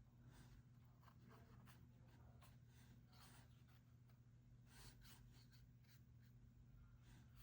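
Faint, irregular scratchy strokes on paper as a log shape is drawn on a journal page, over a steady low electrical hum.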